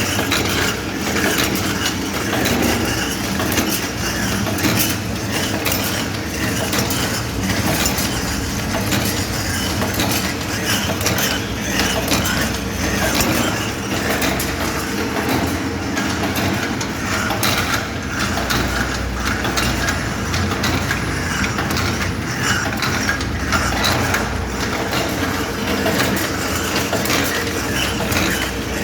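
Gauze-compress cutting and folding machine running, a steady, fast mechanical clatter of many small clicks over a low machine hum.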